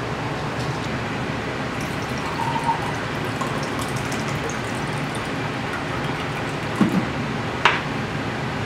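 Steady background hiss with a few light clicks of kitchen handling, a soft thump and then a single sharp knock near the end.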